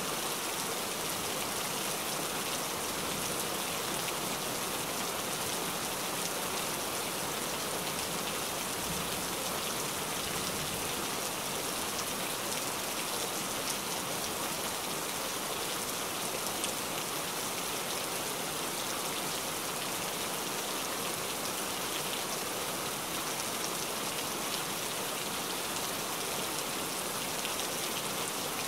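Heavy rain falling steadily on a wet surface: an even, unbroken hiss with scattered drop splashes.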